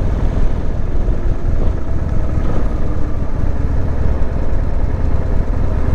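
Harley-Davidson Sportster 883's air-cooled V-twin engine running at low speed as the motorcycle slows and turns, a steady low-pitched sound.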